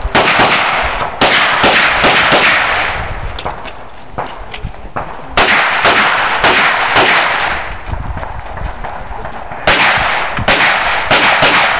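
Gunshots fired in quick strings, each a sharp crack with a short ringing tail: a burst of shots at the start, another about five and a half seconds in, and a third near the end, with lulls between while the shooter moves.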